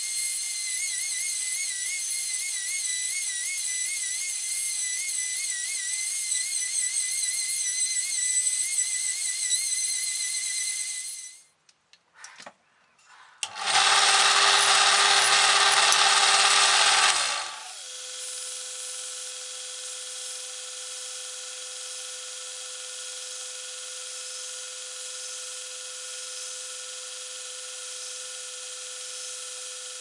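A high-speed rotary tool with a sanding drum whines against the edge of a coin blade, its pitch wavering as it bites, and stops about 11 seconds in. After a short pause with a couple of clicks, a drill press drills through the coin for about three and a half seconds. From about 18 seconds in, a belt sander's motor hums steadily.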